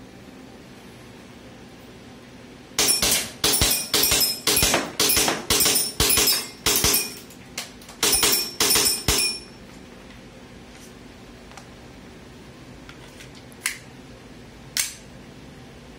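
WE CNC Glock 17 gas-blowback airsoft pistol firing a quick string of about a dozen sharp cracks, about two a second, each shot cycling the slide. After a pause it fires two more single shots near the end.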